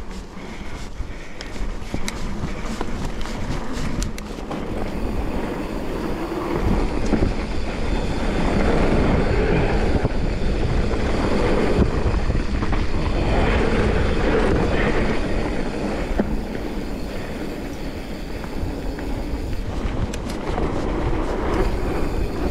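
Mountain bike descending a dirt downhill trail at speed: wind rushing over the microphone mixed with tyres rolling and the bike rattling. Sharp clicks and rattles stand out in the first few seconds, and the rush grows louder about six seconds in.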